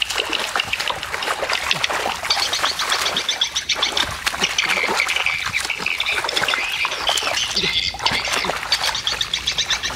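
A chorus of rapid, repeated duck-like animal calls, with water sloshing as hands work through shallow, weedy water.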